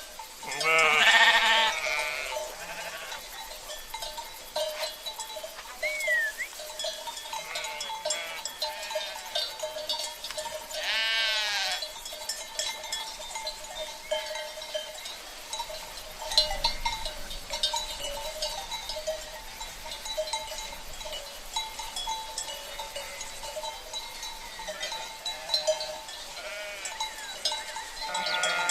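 Sheep bleating, loudly about a second in and again around eleven seconds, over the continual clanking of the flock's bells (cencerros).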